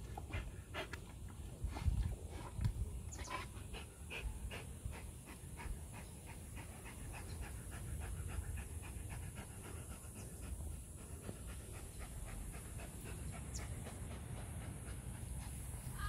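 Borzoi panting in a quick, even rhythm while it noses in the mud.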